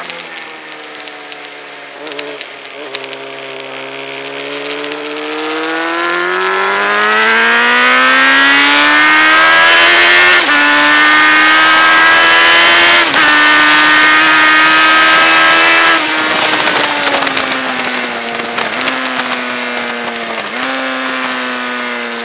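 Motorcycle engine at full throttle on a race track, heard from a camera mounted on the bike. Revs climb for several seconds, then two quick upshifts drop the pitch about halfway through. The throttle closes about three-quarters in, and two downshift blips kick the revs up near the end, with wind rushing over the microphone.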